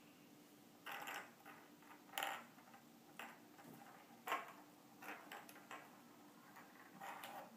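Small Christmas ornament balls being slid and set down on a tabletop, giving irregular light clicks and short rattles as they knock against the table and each other, loudest about two and four seconds in.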